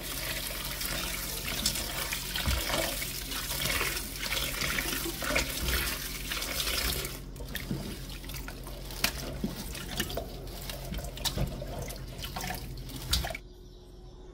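Water running from a tap into a steel bowl of broccoli in the sink for about the first seven seconds, then water splashing as hands swish the florets and lift them out, with a few sharp knocks. It all stops about a second before the end.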